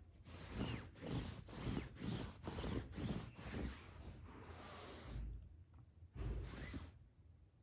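Fabric rustling and swishing in a quick run of strokes as a hand and a kitten play on a bedsheet, then a short lull and one more rustle near the end.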